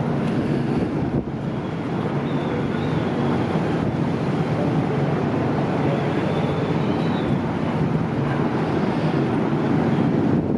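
The 696-ton car ferry Daiichi Kokusai Maru's engines drone steadily as it manoeuvres in the harbour, with strong wind buffeting the microphone.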